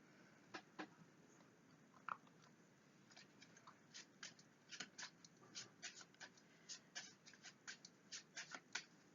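Fortune-telling cards being shuffled by hand: a run of light, quick card clicks and snaps, sparse at first and coming two to three a second from about three seconds in.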